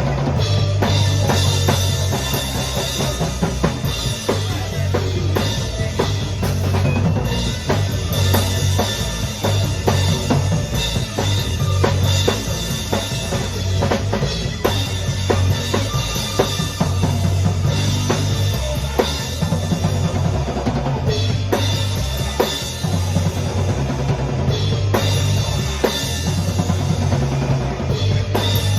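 A band playing a song, driven by a drum kit with kick drum and snare hitting steadily over a low bass part.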